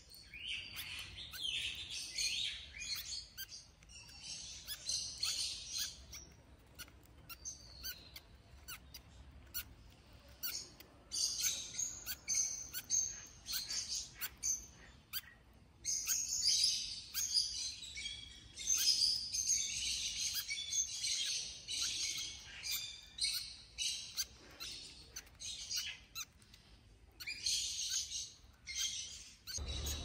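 Lovebirds chirping and chattering in quick, high-pitched bouts, with quieter stretches about a third of the way in and again shortly before the end.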